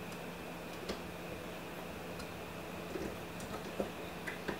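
A few light clicks and taps of a metal screwdriver tip against an airsoft gearbox shell, one about a second in and several more close together in the second half.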